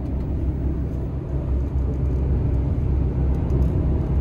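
Lorry cab interior while driving: steady low rumble of the engine and road noise.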